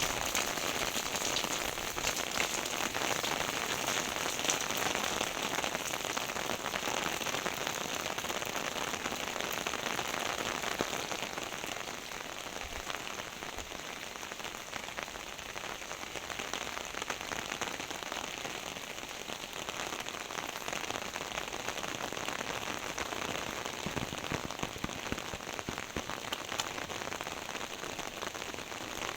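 Heavy rain falling steadily, a dense hiss of drops hitting surfaces, easing slightly about twelve seconds in.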